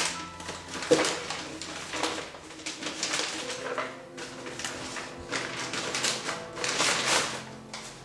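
Wrapping paper crinkling and tearing as a gift box is unwrapped by hand, in irregular bursts, the loudest about a second in.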